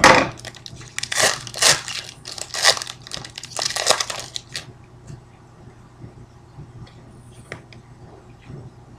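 Trading card pack wrapper crinkling in several loud bursts as it is torn open and the cards are pulled out, over the first four and a half seconds; after that only faint ticks of the cards being handled.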